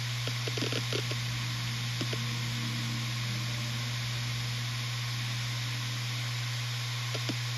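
Western Digital RE 4 TB (WD4000FYYZ) 7200 RPM hard drive running, picked up through a phone resting on its case: a steady hum with hiss. Quick head-seek clicks are heard in the first second or so, stop, and start again near the end.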